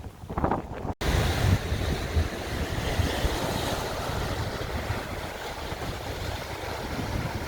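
Strong wind off the sea with waves washing on the shore, gusts buffeting the microphone. The sound breaks off and comes back abruptly about a second in.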